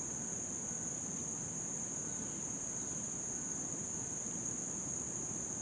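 Insects droning steadily in one unbroken high-pitched band, over a faint, even low rush from a stream flowing into the river.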